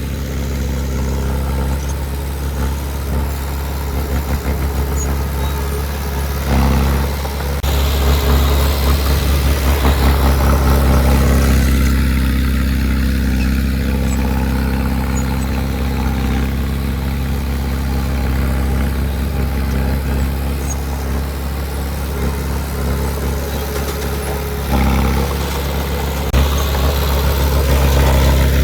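Heavy earthmoving machine's diesel engine running steadily, getting louder for a few seconds about a quarter of the way in and again near the end.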